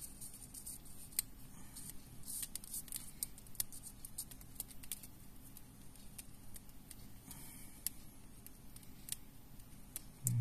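Faint, irregular small clicks and rustling of fingers handling thread and the small metal fittings of a handmade mandula fishing lure.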